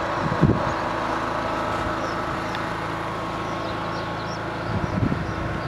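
A motor running steadily, a constant hum with a few held tones, with a brief low thump about half a second in.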